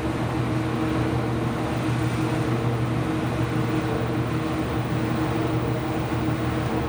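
IPSO commercial washing machine running mid-cycle with a steady mechanical hum of its motor and drum, holding several even tones.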